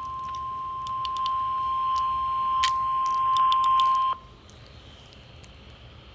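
NOAA Weather Radio warning alarm tone sounding in a weekly test: one steady single-pitch beep that cuts off suddenly about four seconds in. Faint radio hiss follows.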